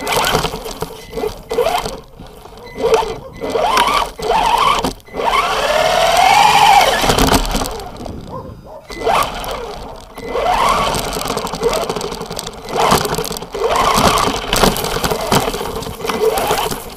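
Brushless motor and geared drivetrain of a ZLL SG116 1:16 4WD RC car, heard close up from the car itself, whining up and down in pitch with bursts of throttle; the loudest rising and falling whine comes about six to seven seconds in. Short knocks and rattles of the chassis and tyres run through it.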